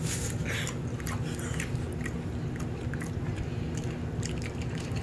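Chewing a homemade strawberry gelatin gummy: small wet mouth clicks and smacks, over a steady low hum.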